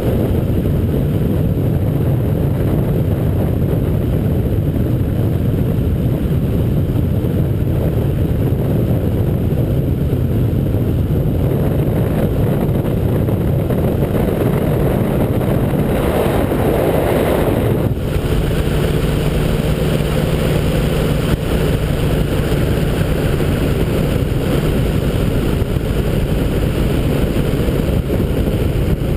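Ultralight trike's engine running steadily in cruise, a constant drone mixed with heavy wind rush on the microphone. The noise swells briefly about two-thirds of the way through.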